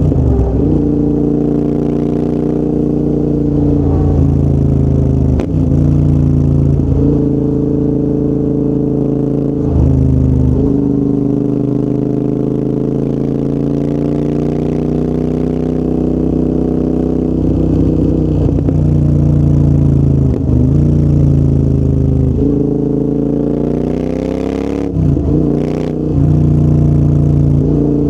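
Royal Enfield Interceptor 650's parallel-twin engine running through a full TEC exhaust system under way, its pitch climbing and easing with the throttle. Repeated brief dips and jumps in the engine note mark gear changes.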